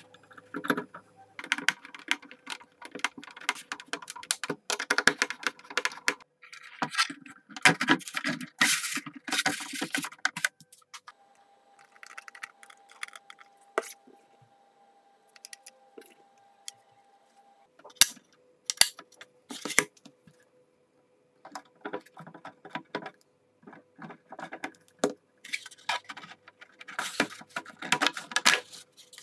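Light 3D-printed plastic airplane parts being handled and fitted together by hand: irregular clicks, taps and scraping of plastic on plastic, in clusters with short pauses.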